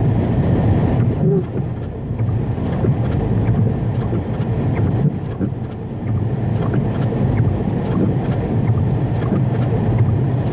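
A car driving through snow: a steady low rumble of engine and tyre noise, with some wind noise.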